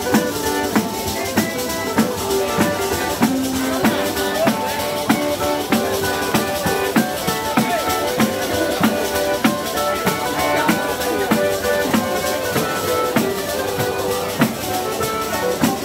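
Street folk band playing a lively dance tune: a small button accordion carries the melody over tambourine frame drums beating a steady rhythm with jingles, and a mandolin strums along.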